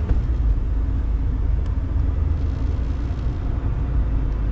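Car driving along, heard from inside the cabin: a steady low rumble of engine and road noise.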